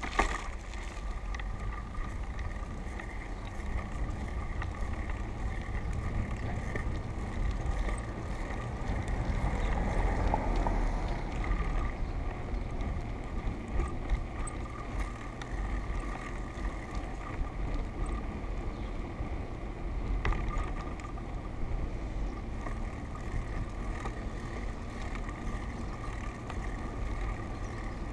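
Wind noise on a moving action camera's microphone, with steady rolling road noise from the vehicle carrying it. The wind grows louder for a few seconds about ten seconds in.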